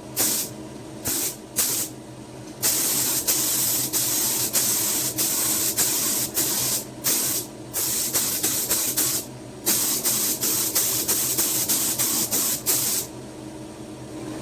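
Paint being sprayed onto a car bumper: a few short hissing spurts, then a long spray pass broken by brief pauses that stops about a second before the end, over a steady low hum.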